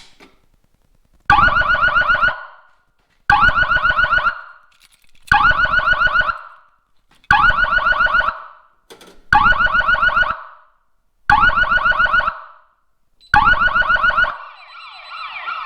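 Fire alarm horn going off after the manual pull station is pulled, with a click right at the start. It sounds seven harsh blasts of about a second each, one every two seconds. Near the end a phone's warbling alert starts: the self-monitoring notification that the alarm has been triggered.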